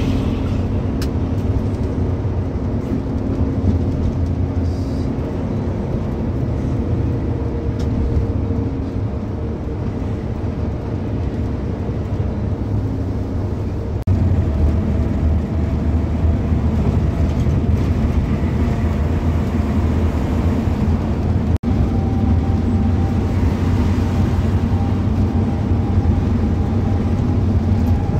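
Engine and road noise heard from inside a moving vehicle's cabin: a steady low drone with a constant engine hum. It steps up in loudness about halfway through and cuts out for an instant about two-thirds of the way in.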